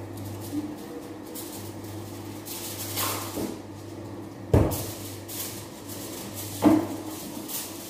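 Knocks and clatter of someone working in a kitchen: two sharp knocks, the first about halfway through and the second two seconds later, with fainter clicks before them, like a cupboard door or a pot being handled. A steady low hum runs underneath.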